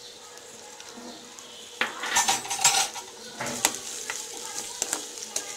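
Diced carrots sizzling in hot oil in a nonstick kadhai. From about two seconds in, a spatula stirs and scrapes them around the pan with a run of clattering knocks.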